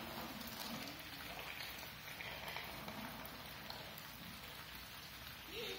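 Steady rain falling on a wet concrete driveway and its puddles, an even patter of a downpour.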